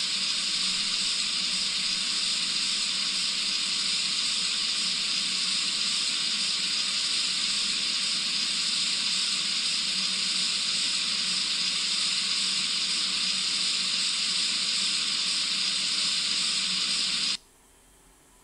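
A steady, even hiss like white noise, which cuts off suddenly near the end.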